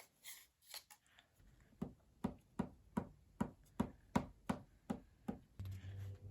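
A run of about ten light, evenly spaced taps, a little under three a second, from hands working on the cardboard craft pieces, followed near the end by a faint steady low hum.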